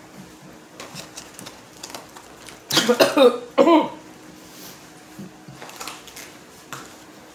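A woman coughing: a harsh burst of coughs about three seconds in, then one more, which she puts down to a cold coming on. Faint paper-wrapper rustles and light clicks come before and after.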